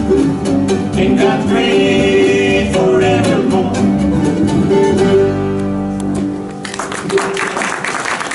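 A bluegrass band's closing line sung in harmony over strummed acoustic guitars, the final chord held and ringing out to end the song. Audience applause breaks out about two-thirds of the way through and carries on to the end.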